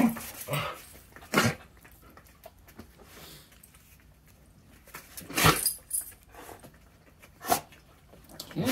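Dogs playing together: a few short growls and barks scattered a second or more apart, the loudest about halfway through, with a short pitched growl near the end.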